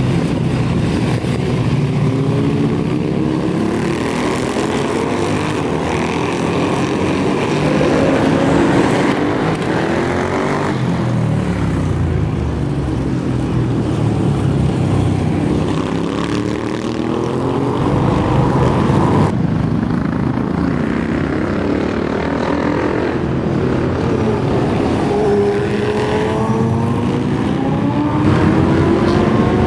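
Classic café racer motorcycle engines accelerating, revving and easing off in turn, their pitch climbing and dropping through the gears. The sound breaks off abruptly and jumps to another pass about two-thirds of the way through.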